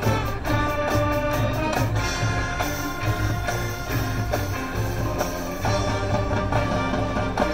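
School marching band playing live: brass and winds hold chords over percussion, with rapid even drum strokes in the first couple of seconds.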